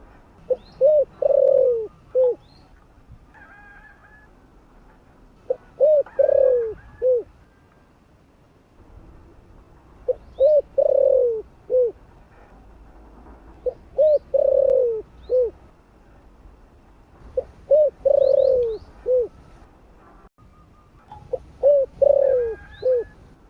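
Spotted dove cooing its territorial call: two short coos, a longer falling coo and a short final coo, repeated six times at about four-second intervals.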